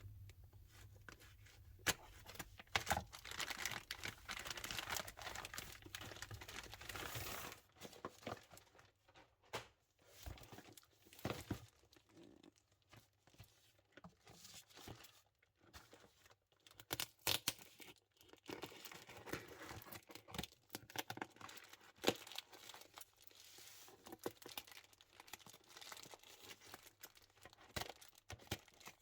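A package being opened by hand: a stretch of steady tearing and rustling of the wrapping, then scattered crinkling, rustles and small handling clicks as the contents are unpacked.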